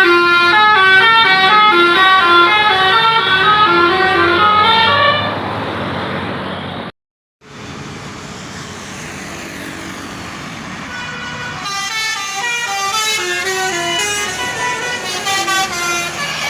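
Basuri multi-tone bus horn playing a tune of quick stepped notes. It fades and cuts off about seven seconds in. After a brief gap there is quieter vehicle noise, and from about twelve seconds in a horn tune plays again, fainter.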